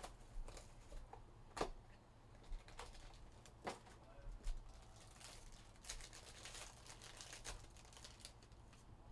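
Faint handling of trading cards and a foil card pack: scattered sharp clicks and crackles as cards are shuffled and the pack is picked up, then the foil wrapper crinkling as it is torn open near the end.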